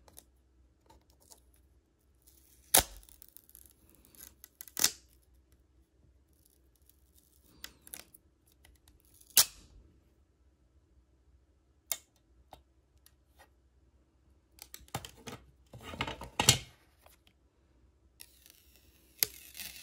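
Hands working a plastic alignment frame and protective film onto a smartphone: a few sharp plastic clicks and snaps spread apart, then a longer burst of rustling and rubbing a few seconds before the end.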